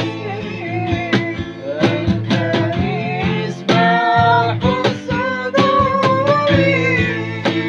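Sholawat (Islamic devotional song) sung with long, wavering held notes over strummed acoustic guitar.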